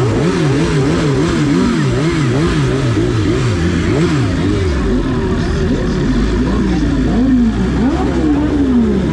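Several sportbike engines being revved over and over, their pitch rising and falling a couple of times a second. About five seconds in, the revs slow and a steady low idle comes in beneath them.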